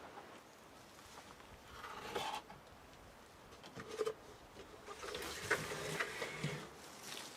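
Handling noises: rustling with light clicks and knocks, loudest about two seconds in and again from about five seconds in.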